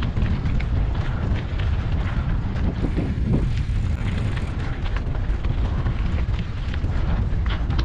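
Steady low rumble of wind buffeting the microphone, with scattered short clicks and rattles throughout.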